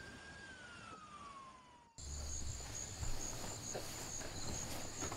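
A whistle falling in pitch, like an incoming shell, cuts off abruptly about two seconds in. Then crickets chirp in a steady pulsing trill.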